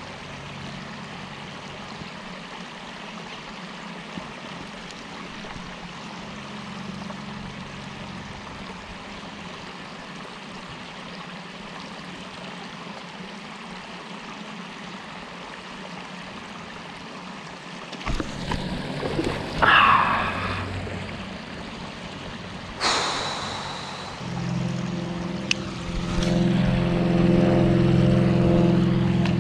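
Steady water-like background noise. In the second half come a few sharp splashes or knocks. About 24 seconds in, a steady low mechanical hum starts and runs on at a higher level.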